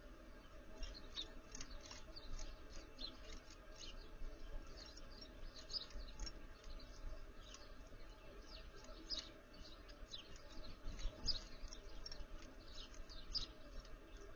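Small songbirds chirping, many short high calls in quick irregular succession, over a low steady background rumble.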